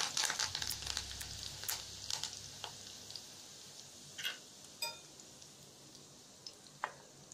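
Curry leaves sizzling in hot oil with mustard seeds and urad dal in a steel kadai. The sizzle fades over the first few seconds, leaving a few scattered sharp pops.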